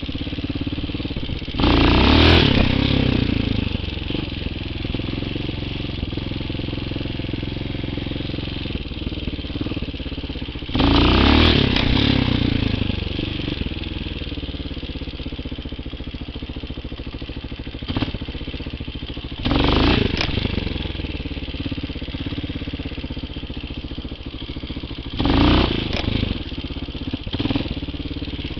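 TaoMotor TBR7 dirt bike's four-stroke single-cylinder engine running at a low steady pace, revving up in four short bursts of throttle spaced several seconds apart. A couple of short knocks come in between.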